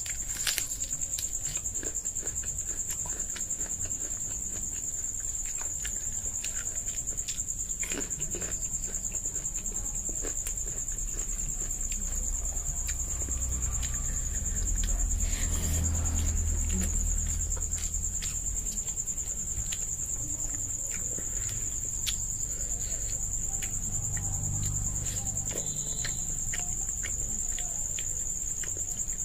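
Eating by hand: fingers mixing rice and chicken curry on a plate, and chewing, with scattered small clicks and smacks. A steady high-pitched trill runs underneath, with a low rumble swelling about halfway through.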